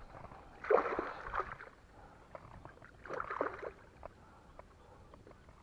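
Two brief rustling swishes about two and a half seconds apart, from a small boat being pulled by hand through dense flooded bushes, with faint light ticks of twigs in between.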